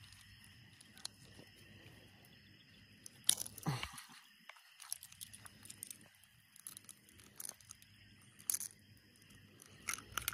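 A largemouth bass being landed and handled at the water's edge, heard as scattered clicks and rustles of the lip grip, line and pliers. There is a louder noisy burst a little over three seconds in as the fish is lifted, and another sharp knock about eight and a half seconds in. Behind it runs a steady, high chirring from the shore.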